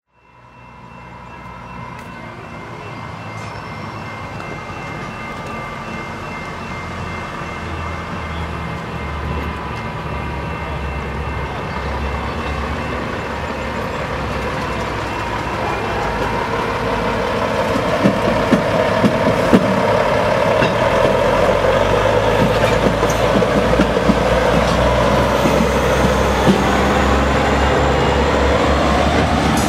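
A hi-rail truck's diesel engine running as it hauls a string of ballast hopper cars along the track, the sound growing steadily louder as it comes near. From about two-thirds of the way through, the hopper cars' steel wheels clack and knock over the rail joints and the diamond crossing as the cars roll past.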